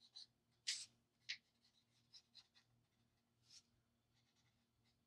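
Faint scratching of an Ohuhu alcohol marker's tip on coloring-book paper: a run of short shading strokes, a couple of them louder in the first second and a half.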